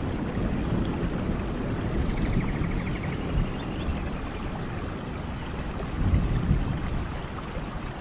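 Steady rain with a heavy low rumble. Faint short high chirps from small animals come through it, a quick run of three or four about halfway and again near the end.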